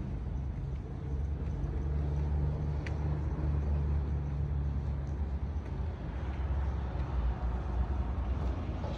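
A motor vehicle's engine running close by: a low, steady rumble that swells for a few seconds in the middle.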